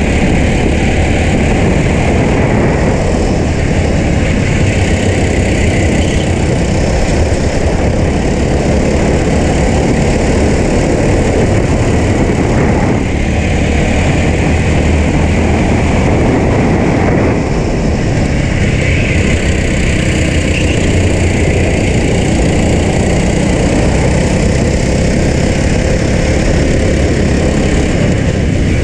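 Racing kart engine running hard under the driver's seat, loud and continuous, its note rising and falling a little with throttle through the corners.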